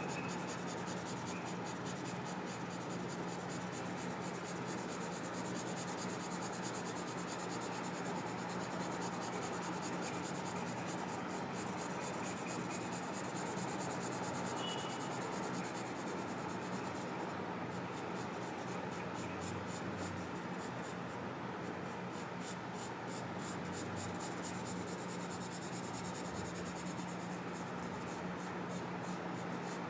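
Pencil scratching on paper in rapid, continuous back-and-forth shading strokes, laying down a dark tone.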